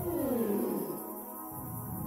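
Background music with sustained drone tones; in the first second a gliding tone falls in pitch over a low rumble.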